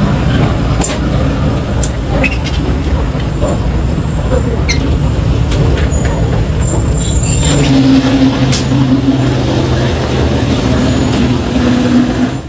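Passenger train noise heard from inside the coach: a steady rumble with scattered clicks and knocks, and a humming engine drone that comes in about two-thirds of the way through.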